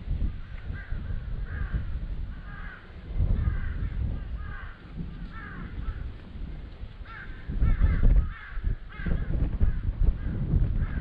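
A bird calling over and over in short, arched notes, about one to two a second, with gusts of wind rumbling on the microphone.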